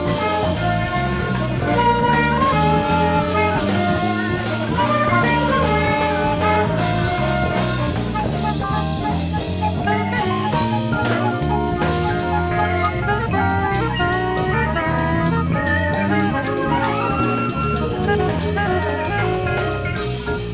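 Jazz orchestra music: held brass and saxophone chords over a drum kit.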